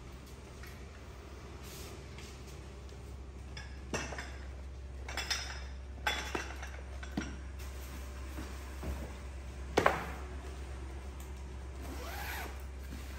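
Camping gear being unpacked by hand: scattered rustles of a paper bag and a tent carry bag, and a few light clinks, the loudest about ten seconds in.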